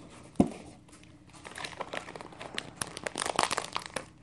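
A single thump about half a second in, then plastic packaging crinkling in quick irregular crackles as a squishy toy's bag is handled.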